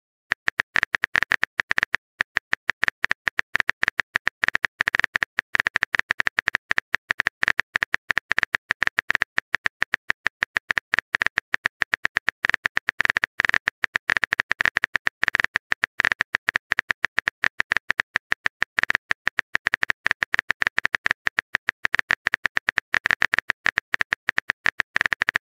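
Rapid, even keyboard-typing clicks: a texting app's typing sound effect, many clicks a second.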